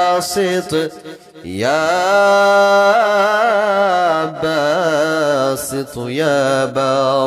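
A man chanting a devotional zikr in a slow, melodic style, long notes that waver in pitch. About a second and a half in the voice breaks off briefly, then glides up into a long held note.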